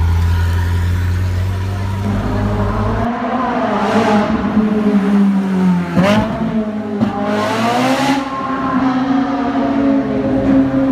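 Ferrari V8 supercar engines. First a low, steady rumble as a car rolls slowly. Then cars accelerate hard past, the engine note climbing in pitch, dropping sharply at a gear change about six seconds in and climbing again.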